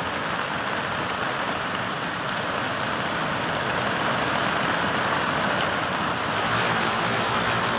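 Cold lahar, a volcanic mudflow of water carrying sand and rock, rushing down a river channel: a steady, unbroken noise of churning flood water.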